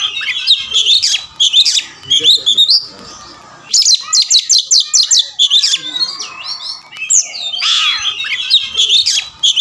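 Oriental magpie-robin (kacer) singing a loud, varied song of whistles and chirps. After a brief pause about three seconds in, it gives a rapid run of about ten repeated notes, then goes back to varied phrases.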